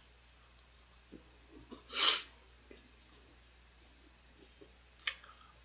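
A man eating fried chicken: faint mouth clicks of chewing, and about two seconds in a short, sharp breath through the nose, with a shorter one near the end.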